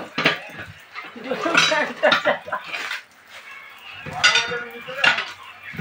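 Steel tyre levers clanking irregularly against the steel wheel rim of a 10.00-20 truck tyre as the tyre bead is prised over the rim.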